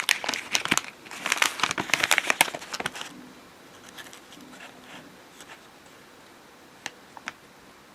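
A plastic bread-bag wrapper crinkling as it is handled, loud for the first three seconds. It then goes quiet, with a few faint clicks and rustles near the end.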